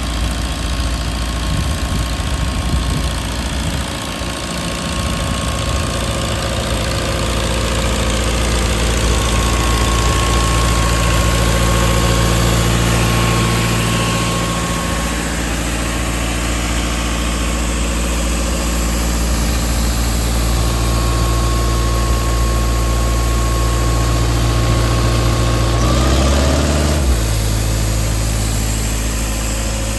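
Doosan C185 diesel air compressor's Kubota V2403 four-cylinder diesel engine running steadily. The engine note briefly shifts about 26 seconds in, then settles back.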